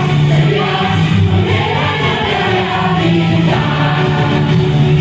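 Loud music with a chorus of voices singing over a steady bass line.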